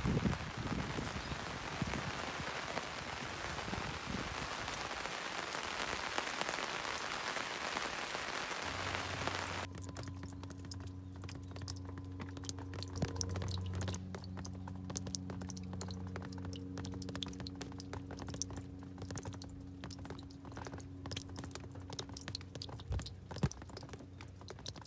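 Steady rain falling, then about ten seconds in it cuts off abruptly to quieter low, sustained tones with scattered light ticks.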